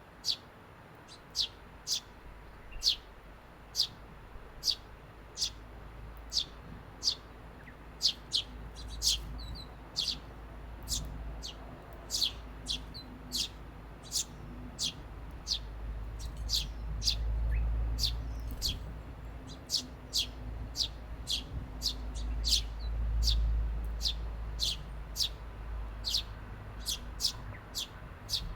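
Eurasian tree sparrows chirping: a steady run of short, sharp, high chirps, about one or two a second. A low rumble swells up twice under them, about two thirds of the way through and again a few seconds later.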